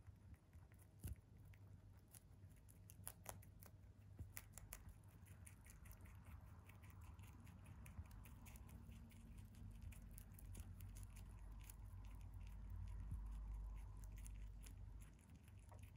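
A rabbit chewing a leafy green: a fast, uneven run of faint crunching clicks. A low hum sits underneath and swells briefly near the end.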